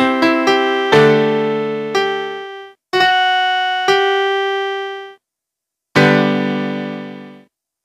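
Global portable electronic keyboard playing a piano voice: a closing phrase of notes and chords about a second apart, ending on a chord struck about six seconds in that fades and then cuts off.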